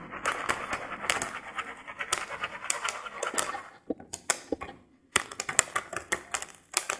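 Popcorn kernels popping in a foil stovetop popcorn pan over a gas burner: irregular sharp pops, several a second, dropping to a near-quiet lull for about a second near the middle.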